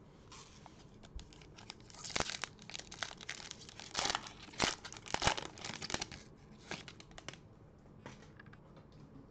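Foil wrapper of a Panini Prizm basketball card pack being torn open and crinkled: a run of sharp crackles starting about two seconds in, loudest in the middle and dying away near the end.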